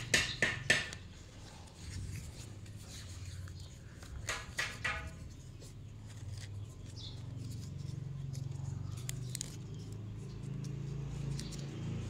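Fresh banana leaves rustling and crinkling as they are folded and wrapped by hand, with a cluster of crisp crackles about four seconds in. A steady low hum runs underneath.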